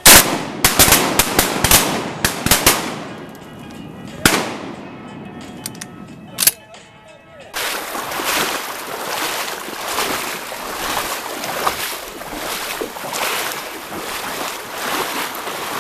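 A rapid volley of shotgun shots in the first three seconds, then two more single shots a few seconds apart. After that comes a steady rushing water noise with a regular pulse.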